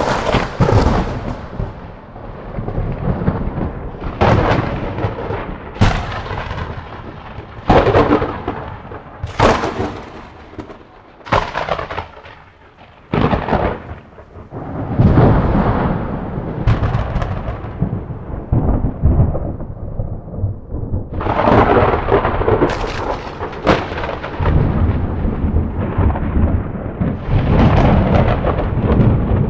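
Thunder: a run of sharp cracks every one to two seconds, each trailing off into a low rolling rumble, with a short lull near the middle.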